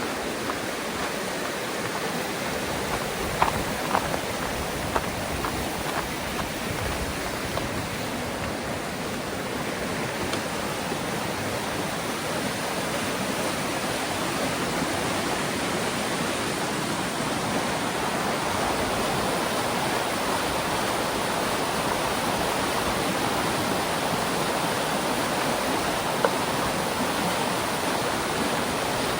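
Steady rush of a waterfall and its stream, swelling slightly after about ten seconds, with a few sharp clicks early on and one more near the end.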